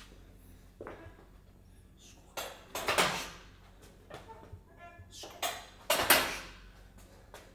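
Gym equipment clanking: about five sharp metallic clanks and knocks, the loudest about three and six seconds in, with a brief squeak between them.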